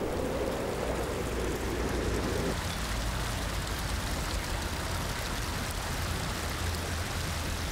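A low steady rush for the first two and a half seconds, then water pouring from the many spouts of a stone street fountain and splashing steadily into its stone trough.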